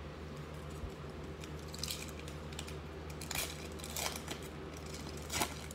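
Foil wrapper of a Panini Chronicles basketball card pack crinkling as it is torn open by hand, in several short rustling bursts, the loudest near the end.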